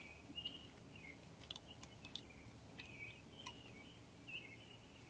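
Near silence with faint, scattered short high chirps of small birds, and a few light clicks.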